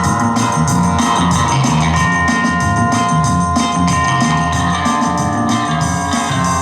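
Music with a steady drum beat under long held tones.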